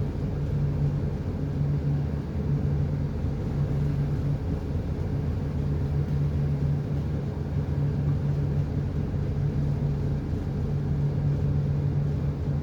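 Ship's diesel engine running steadily: a continuous low drone with a constant hum.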